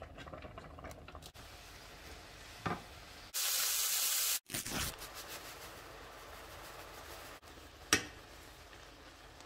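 Short clips of pan cooking sounds that change abruptly from one to the next. A steak sizzles loudly in butter in a frying pan for about a second near the middle, and a utensil knocks against the pan twice.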